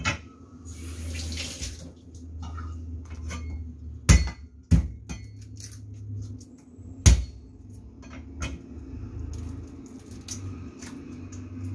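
Cleaver blade tapping, scraping and chopping on a thick wooden chopping block as ginger and garlic are cut, with a short scrape about a second in and three loud knocks of the blade on the block, at about four, five and seven seconds.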